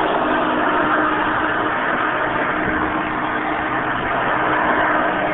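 Hoover Elite 200 upright vacuum cleaner running steadily: a loud, even motor rush with a steady underlying hum.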